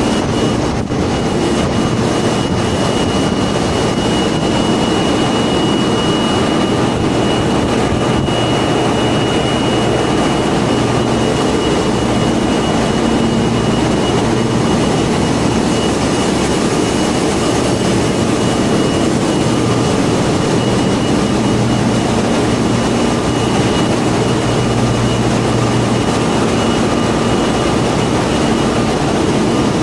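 Loud, steady machinery din of a dual-fuel diesel-electric LNG carrier's engine room: many running machines blend into a constant roar, with a steady high whine and a low hum running through it.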